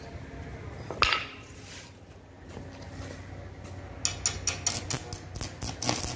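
Metal clinking of pliers against a stainless steel wire grill grate: one sharp clank about a second in, then a quick run of small clinks near the end.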